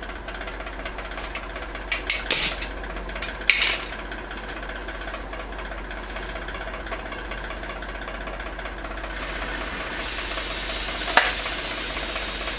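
Harris oxy-acetylene welding torch hissing steadily, with a few sharp clicks about two to four seconds in and another near the end; the hiss grows louder over the last few seconds as the gas flow is opened up.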